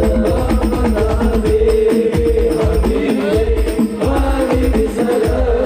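Male voices singing a sholawat (Islamic devotional song) melody into microphones, over hadrah percussion with frame drums and a low drum beating steadily.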